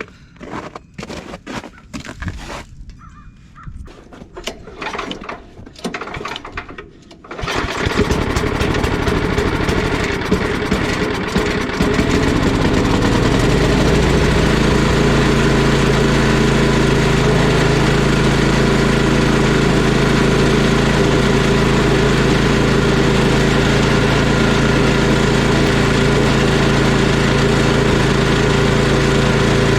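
Snowblower's Tecumseh small engine, just fitted with a cleaned carburetor, starting after a few seconds of scattered clicks and knocks while it is primed. It runs unevenly for a few seconds, then settles into steady running.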